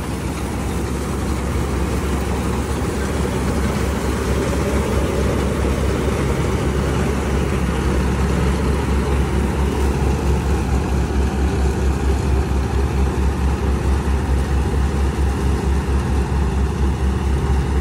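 Self-propelled combine harvester running while cutting wheat: the diesel engine and the threshing gear make a steady, loud din. Strong wind rumbles on the microphone, and the sound flutters quickly in the second half.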